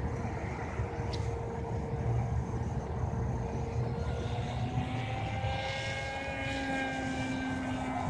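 Motor and propeller of a foam RC plane in flight, a steady whine with a second, higher whine that rises in pitch about halfway through, over a low rumble.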